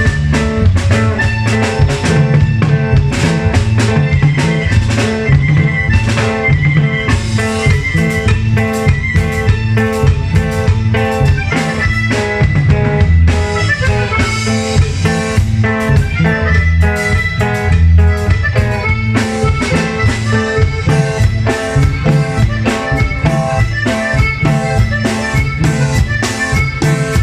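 A norteño band playing a cumbia with a drum kit keeping a steady, driving beat under the melody instruments, with no singing.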